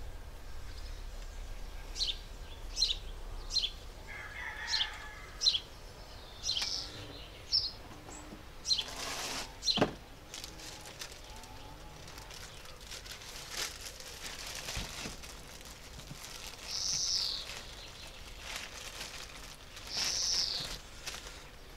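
Small garden birds chirping in short, sharp notes repeated through the first half, then two longer falling calls near the end. About nine to ten seconds in, a rustle of plastic wrapping and a sharp knock as a light stand is pulled from its sleeve.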